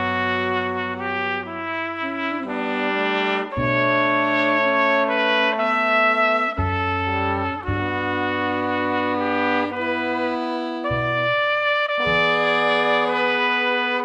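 Brass street band music: trumpets and trombones playing long held chords over a low brass bass line, the harmony changing every second or two.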